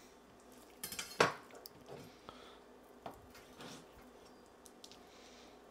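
Kitchen knife knocking and scraping on a cutting board while raw venison is sliced, with a cluster of sharp clacks about a second in and a few lighter knocks later.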